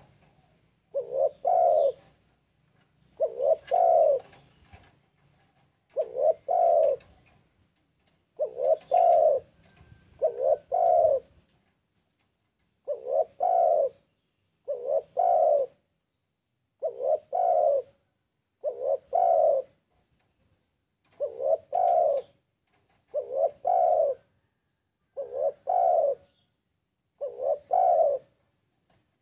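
Spotted dove (tekukur) cooing: a two-part coo about a second long, repeated about every two seconds.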